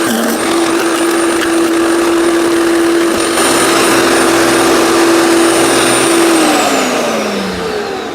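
15 amp electric wood chipper shredder's motor and blades running with a steady whine; a lower hum joins about three seconds in. Over the last two seconds the whine falls steadily in pitch as the machine slows.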